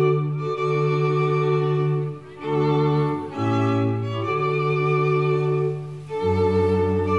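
Background music: slow string music with long held notes, the chords changing every second or two.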